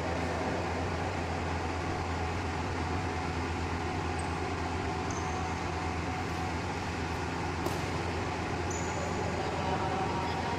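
Steady low hum and hiss of an indoor sports hall's background noise, with a few faint short high squeaks of court shoes on the synthetic floor and a single sharp click about three-quarters of the way through.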